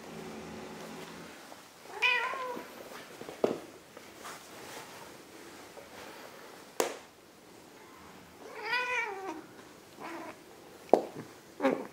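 Ragdoll cat meowing twice while the cats wrestle: a short meow about two seconds in and a longer meow that rises and falls around nine seconds. A few sharp knocks come in between and near the end.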